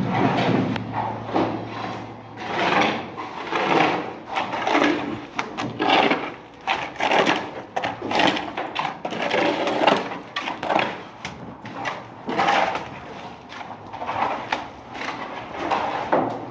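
Repeated rough scraping strokes of hand tools on building material, about one a second and uneven in loudness.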